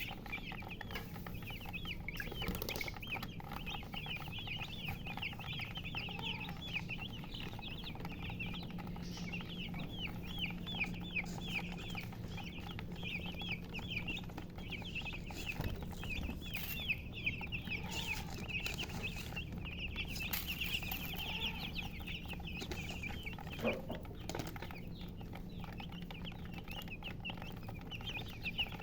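A group of baby chicks peeping continuously, many short high chirps overlapping in a dense chorus, over a steady low hum.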